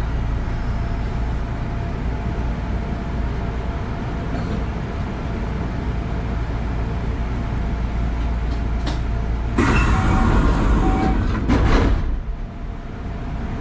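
Kintetsu electric train standing at a station, heard from inside the cab: a steady low hum of the train's equipment. A loud rush of hissing noise starts about ten seconds in and lasts roughly two seconds.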